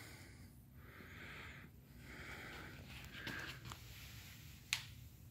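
Soft breathing close to the microphone, several hissy breaths about a second apart, then a single sharp click near the end.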